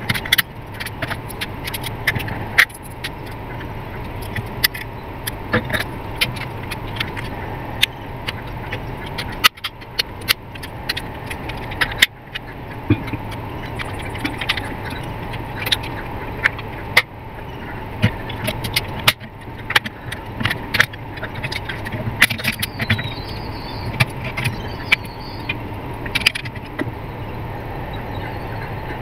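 Many small clicks and taps of plastic parts and a small screwdriver as a digital clamp meter is taken apart and its circuit board and LCD panel are handled, over a steady hum.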